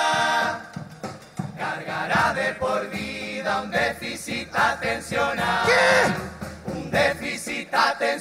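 A choir singing a melodic passage over musical accompaniment.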